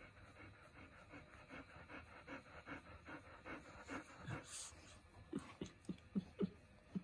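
Bernese mountain dog panting softly with its mouth open, about two or three breaths a second. Near the end come a few louder, short low sounds.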